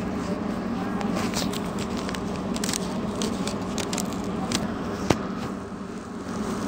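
Trolza-5275.05 Optima trolleybus running: a steady low hum inside the passenger area, with a scatter of light clicks and rattles and one sharp click about five seconds in.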